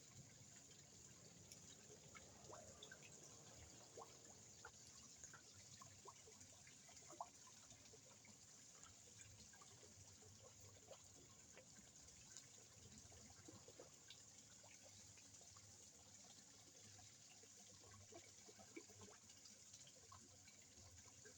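Faint water trickling and dripping in a koi pond, with many small scattered drips and plops.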